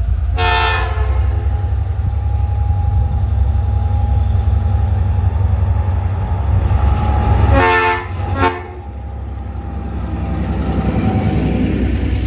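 TasRail TR class diesel-electric locomotive sounding its horn: one blast about half a second in, then two near the eight-second mark, the second very short. A steady low rumble from the approaching train runs underneath.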